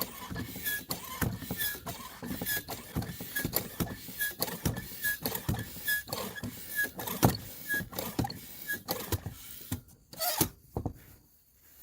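Bicycle pump being worked by hand in quick strokes, about two a second, each with a short squeak, inflating a new inner tube just enough to give it shape. The pumping stops about ten seconds in.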